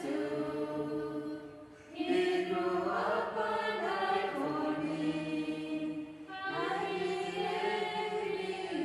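A small group of voices singing a hymn together in slow, held phrases, with a short pause for breath about two seconds in.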